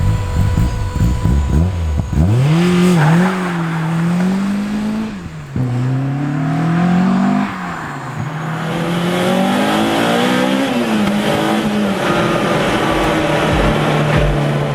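Sports car engine accelerating hard through the gears: its note climbs and falls back sharply at each change, about three times, then holds steady near the end. A low rumble fills the first two seconds before the engine note comes in.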